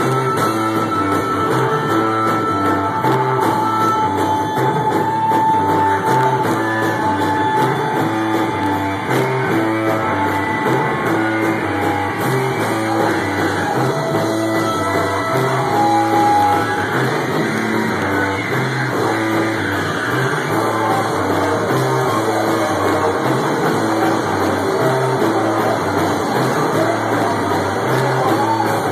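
Live rock band playing: electric guitar and drum kit with a sung vocal, heard from the audience.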